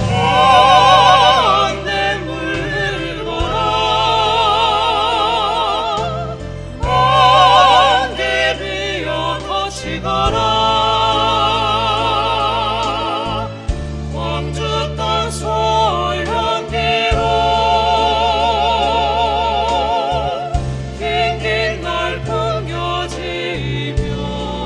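Small vocal ensemble singing with wide vibrato over a low, sustained accompaniment. The voices swell loudest about a second in and again around seven seconds in.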